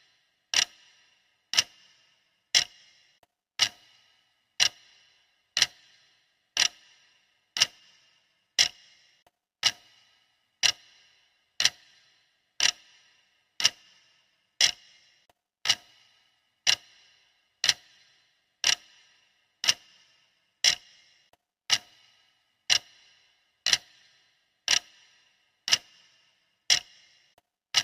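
Steady clock ticking at one tick a second, each tick a sharp click with a brief ring.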